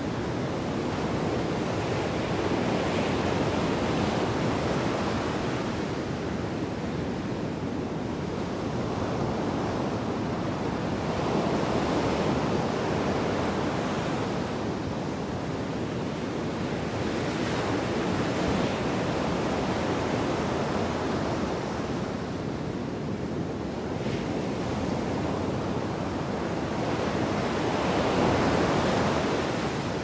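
Storm surf on the Black Sea breaking on a pebble beach: a continuous rush of water that swells with each breaking wave every few seconds, loudest near the end. Wind buffets the microphone underneath.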